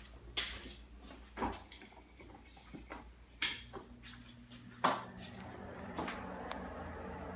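A few sharp knocks and clicks, spaced a second or so apart and loudest about five seconds in, over a low steady hum that grows fuller after that.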